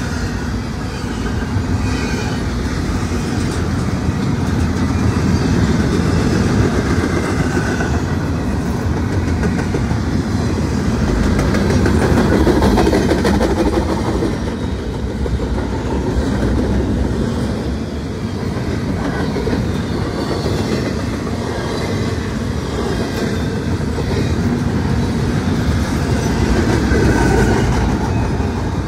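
Norfolk Southern intermodal freight train rolling past, a continuous rumble of steel wheels on the rails that swells twice and eases off in between.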